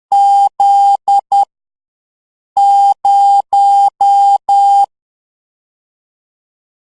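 Morse code sent as a steady, mid-pitched electronic beep: dash-dash-dot-dot (the letter Z), then after a pause of about a second, five dashes (the digit 0).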